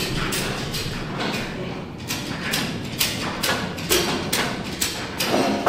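A series of sharp knocks, irregular at about two or three a second, over a steady low rumble.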